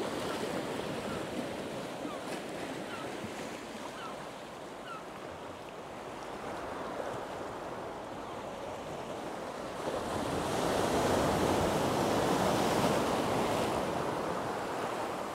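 Sea surf washing in over rocks and shingle, a steady rush of water. About ten seconds in, a bigger wave swells louder and foams around the rocks before easing off.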